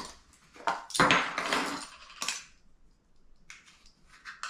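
Measuring spoon clinking and scraping against its container as baking powder is scooped out. There are a few sharp clicks and a longer scrape about a second in.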